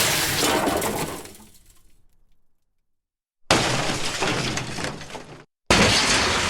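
Crash sound effects played one after another: a crash at the start that trails off over about two seconds, a second crash about three and a half seconds in, and a third near the end, each starting abruptly, with dead silence between them.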